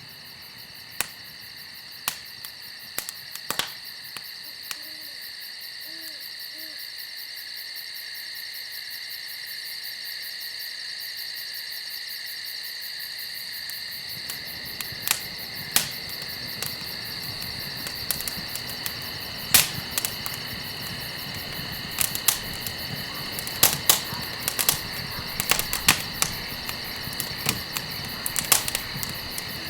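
Campfire crackling with sharp pops, sparse at first and much thicker from about halfway, when a hiss of burning comes up. Crickets chirp steadily and high throughout, and an owl hoots faintly a few times about five to seven seconds in.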